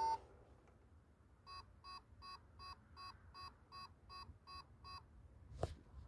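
iRobot Roomba robot vacuum beeping ten times, short even beeps about two and a half a second: its error 10 signal, meaning the Roomba is stuck. A short knock near the end.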